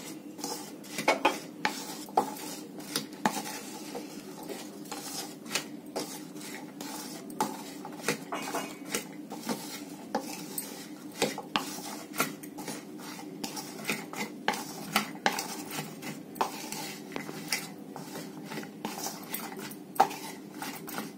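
Wooden spatula stirring halved raw karonda berries with spices and jaggery in a ceramic bowl, with irregular clicks and scrapes as it knocks against the bowl.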